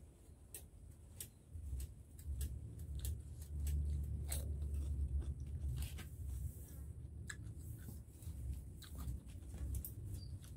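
Close-up chewing and biting: a person eating with wet mouth clicks and crunchy bites into raw cucumber.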